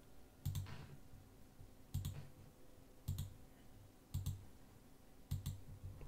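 Computer mouse button clicking: five sharp double clicks about a second apart, each with a dull low knock under it.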